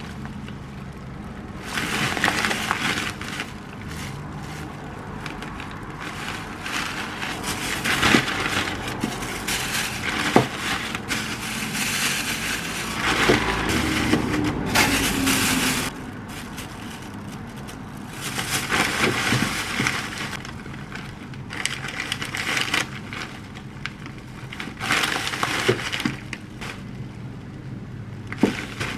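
Clear plastic zip-top bags crinkling and rustling as they are handled and packed with frozen baked goods, in irregular bursts with short quieter gaps.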